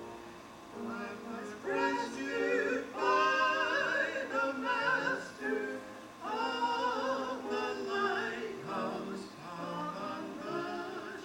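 Live gospel music: a melody line with vibrato over steady sustained accompaniment, in phrases that swell and fall back.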